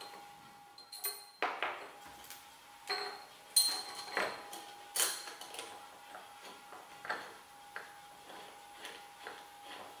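Irregular metallic clinks, taps and ticks of a steel T-nut and screw being fitted into the slot of a rotary table's face plate and worked with a hand wrench, with the sharpest clinks a few seconds in. A faint steady tone runs underneath.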